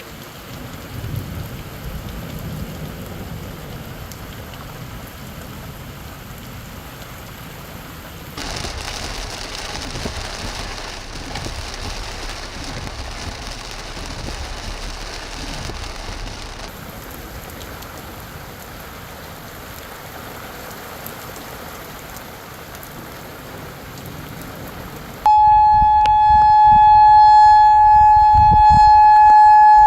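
Heavy rain falling in a severe thunderstorm, with a low rumble of thunder near the start. About 25 seconds in it gives way abruptly to a much louder outdoor tornado warning siren holding one steady tone.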